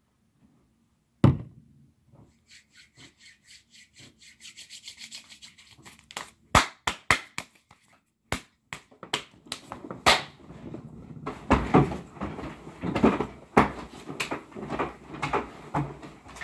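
Hands rubbing and slapping together fast and hard: a sharp click about a second in, then a quick, even run of rubbing strokes, about five a second, growing louder, then loud irregular slaps, with heavier rubbing and thumps toward the end.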